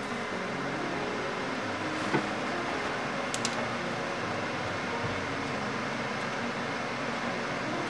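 Steady hum and hiss of an electric oven running with its door open, with a sharp clack about two seconds in and two light clicks a little later as the hot tart tin and metal tray are handled.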